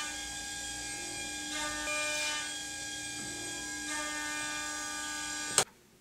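Steady electric buzz with many overtones, its tone shifting a couple of times, then cut off by a sharp click about five and a half seconds in.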